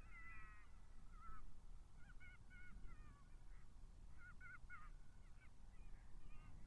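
Golden jackals yipping and howling faintly: short, wavering, high-pitched yelps in quick clusters, with brief pauses between.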